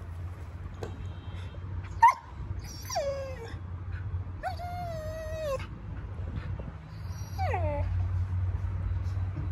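Siberian husky complaining in anger: a short sharp bark about two seconds in, then a string of whining, howl-like calls, one falling, one longer and held before dropping, and a short falling one near the end.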